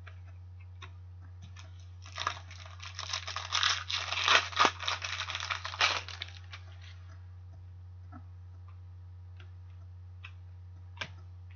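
Foil wrapper of a 2014-15 O-Pee-Chee Platinum hockey card pack being torn open and crinkled: a dense crackling lasting about four seconds, starting about two seconds in. It is followed by a few faint clicks as the cards are handled.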